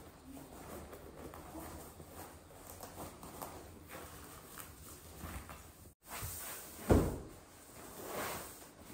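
Faint knocks and handling noises, then a single heavy thump about seven seconds in.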